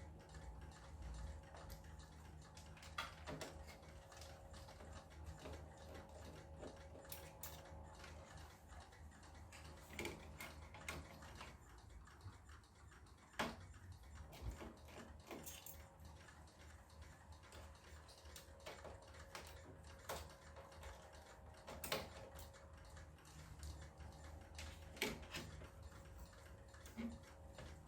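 Quiet room tone with a low steady hum, broken by a scattering of faint, irregular clicks and taps from handling wires and circuit boards inside an opened LCD television.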